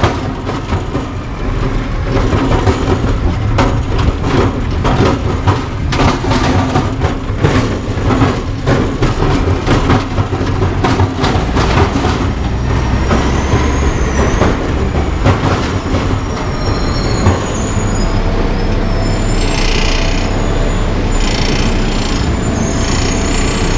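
Zetor 7011 tractor's diesel engine running steadily while driving, with loose clanking and rattling over the rumble. Near the end a thin, wavering high squeak joins in.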